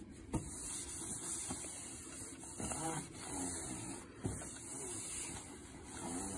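A cloth pad scrubbing the plastic cabinet top of a Commodore 1902A monitor: a hissing swish that rises and falls with each back-and-forth stroke, with a few light knocks.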